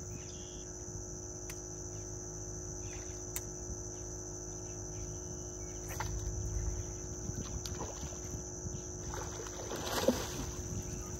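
A hooked redfish thrashing and splashing at the water's surface once, about ten seconds in. It sounds over a faint steady hum and a thin high-pitched whine.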